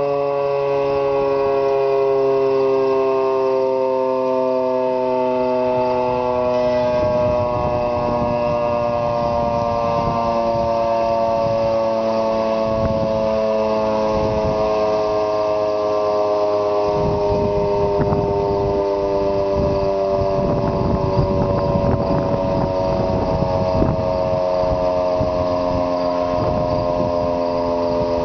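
Federal Signal 3T22 three-tone siren winding down, its chord of tones sliding slowly and steadily lower in pitch. A rough low rumble joins about a quarter of the way in.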